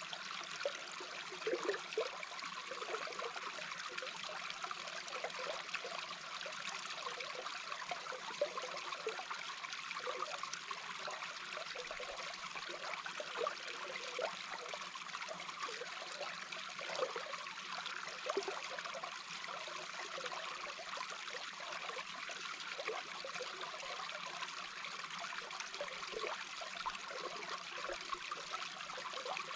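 Small brook recorded underwater: a steady rush of flowing water, dotted with many short, irregular gurgles.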